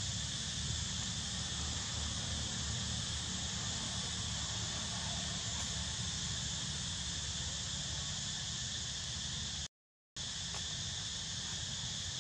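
Steady insect chorus, shrilling in two even high bands, over a low constant rumble. The sound cuts out completely for about half a second near the end.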